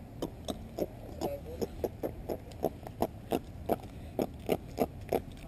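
A freshly caught fish held in the hand, grunting: a rapid, even series of short croaking pulses, about three to four a second.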